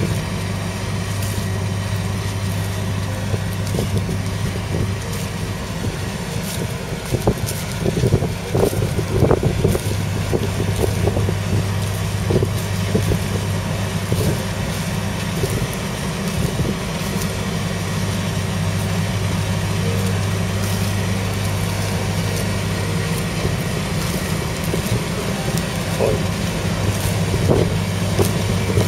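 A Kubota M7171's 6.1-litre diesel engine running steadily under load as the tractor pulls a reversible plough through the ground. Scattered knocks and clatters come through about a quarter of the way in and again near the end.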